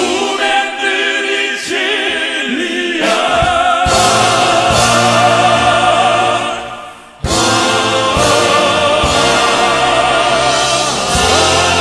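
Male classical-crossover vocal quartet singing in operatic style, with sustained, wavering vibrato notes. The music dips almost to a pause about seven seconds in, then comes back in loudly on a long held chord.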